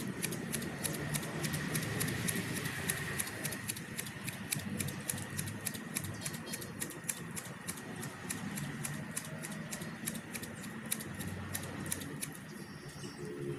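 Hand scissors snipping grass blades in a quick steady rhythm, about four cuts a second, stopping near the end.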